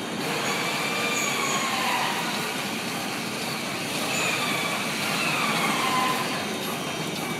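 Non-woven sheet cutting machine running: a steady mechanical din as the fabric is fed off the roll, with faint wavering high tones over it.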